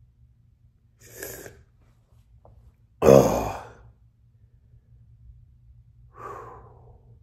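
A man breathing hard against the burn of a superhot chili pepper: a breath about a second in, a loud voiced sigh about three seconds in, and a softer breath out near the end.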